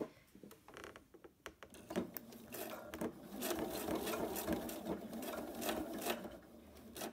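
Pfaff Quilt Expression 4.2 electric sewing machine topstitching a faux-leather strap with a long straight stitch. A few light clicks come first, then the machine runs steadily from about two seconds in and stops just before the end.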